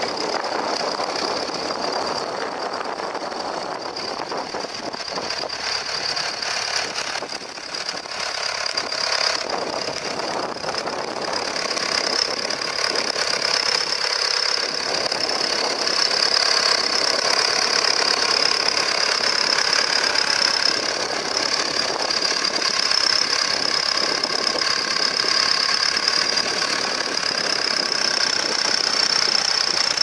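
Nuffield Universal tractor engine running steadily as it pulls a three-furrow plough through the ground. It grows louder about halfway through.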